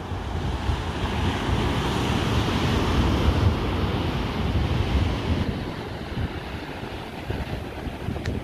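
Surf breaking and washing up a sandy beach, with wind buffeting the microphone. The wash swells a couple of seconds in and eases off in the second half.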